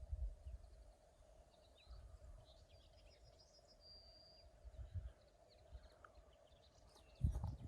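Faint outdoor ambience: small birds chirping, with gusts of wind buffeting the microphone, the strongest gust near the end, over a faint steady hum.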